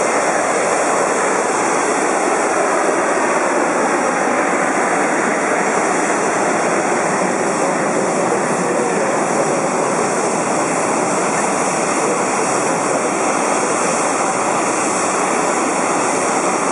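Flight simulator's jet engine sound for an Airbus A380 turbofan, running steadily at a constant spool: an even rush of noise with no change in pitch or level.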